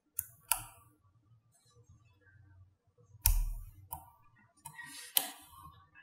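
Small magnetic balls clicking as they snap onto a figure built of magnetic balls: a handful of sharp separate clicks, with a louder knock a little past three seconds in.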